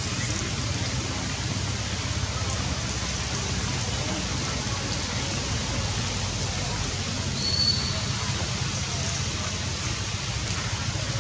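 Steady rain falling on forest foliage, an even hiss with a low rumble underneath.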